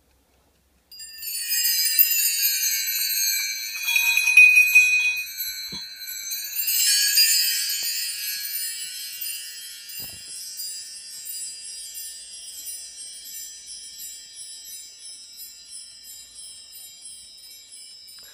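High, shimmering chime tones that swell in about a second in and again near seven seconds, then slowly fade away.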